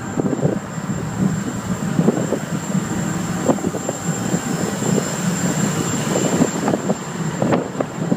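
Ferry under way: a steady engine rumble with irregular buffeting, likely wind on the microphone.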